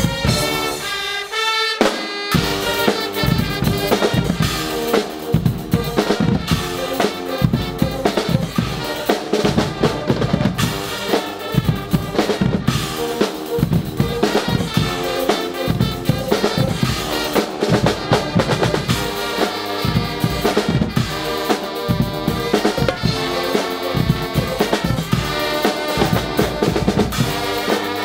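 Guggenmusik band playing: a drum kit and a marching bass drum keep up a busy, driving beat, with brass lines coming and going over it. The drums start in full about two seconds in.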